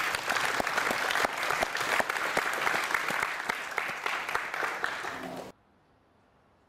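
Audience applauding, a dense patter of many hands clapping that cuts off abruptly about five and a half seconds in, leaving near silence.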